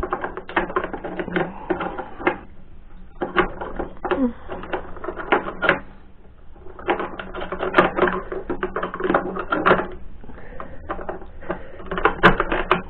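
Steel gearbox parts clicking and knocking against each other in irregular flurries as the reverse idler gear of a VAZ-2112 manual gearbox is set into its housing.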